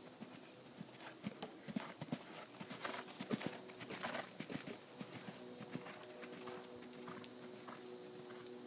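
Horse's hooves thudding on arena sand at a canter, loudest about two to four seconds in as the horse passes close, then fading as it moves away.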